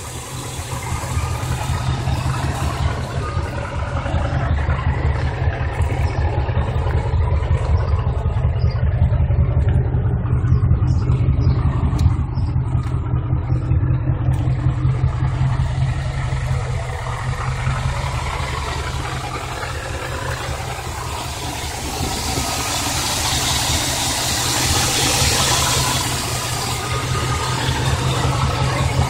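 1989 Chevy K1500 pickup engine idling with a steady, pulsing low rumble, just after a tune-up with new plugs, wires, distributor cap and rotor. Its level rises and falls a little, and a hiss swells for a few seconds about three quarters of the way through.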